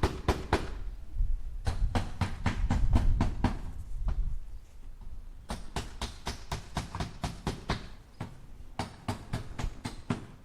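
A hammer striking nails into wood in quick runs of sharp taps, about five a second, with short pauses between the runs.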